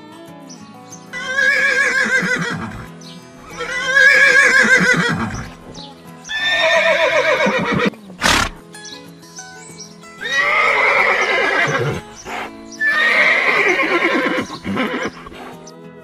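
Horse neighing five times, each whinny about two seconds long with a quavering pitch, over steady background music. Between the third and fourth whinny there is a single short, sharp knock.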